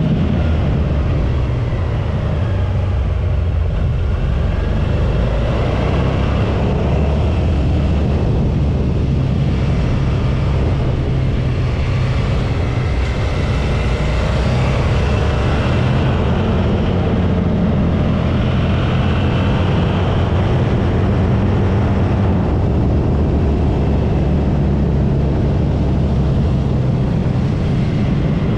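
Suzuki V-Strom 650's V-twin engine running at speed, its note shifting up and down several times as it is ridden hard through bends, under a steady rush of wind noise.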